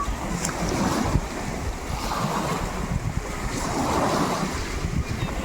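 Sea waves washing and splashing, with wind rumbling on the microphone.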